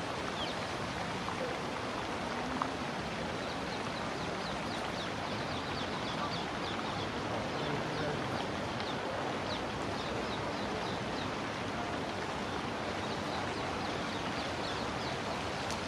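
Steady outdoor background hiss with many faint, short, high chirps of small birds scattered through it.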